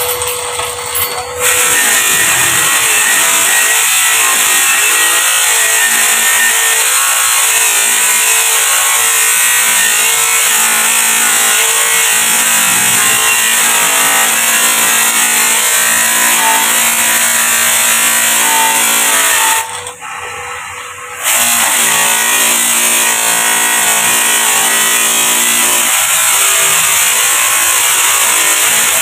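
Bench grinder wheel spinning with a steel motorcycle muffler shell pressed against it: a loud, steady hiss of metal being worked on the wheel. Near the two-thirds mark it eases for a second or so as the work comes off the wheel, then picks up again.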